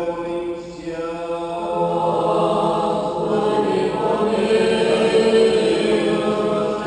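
A group of voices singing an unaccompanied Byzantine-rite liturgical chant, with long held notes, swelling louder about halfway through.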